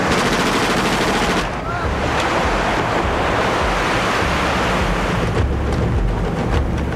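Steady rushing noise of surf and wind on an old film soundtrack, which dips and changes about a second and a half in.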